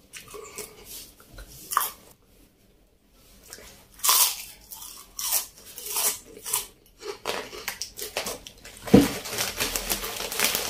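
Crispy fried wheel chips crunching as they are bitten and chewed close to the microphone, in separate bites with the loudest about four seconds in. Near the end, the plastic packet of chips crinkles steadily as it is handled.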